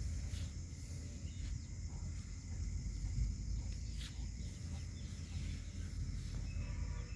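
Outdoor farm ambience: a steady low rumble with scattered faint ticks and clicks.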